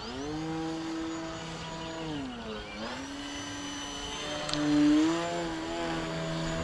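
Electric RC aerobatic plane's brushless motor and propeller whining with the throttle. The pitch rises at the start, drops about two seconds in, climbs again just under a second later, and the whine is loudest about five seconds in.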